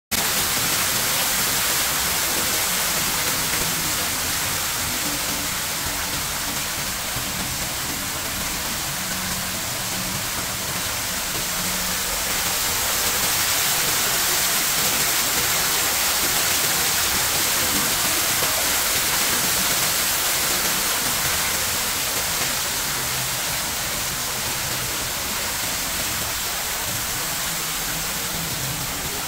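Steady rushing of falling water: an even hiss with no breaks, strongest in the high range, a little louder in the middle stretch.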